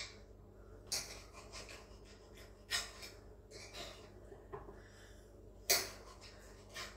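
Knife cutting raw chicken breast on a cutting board: a few scattered sharp clicks of the blade against the board, the loudest nearly six seconds in, with soft breathing between them.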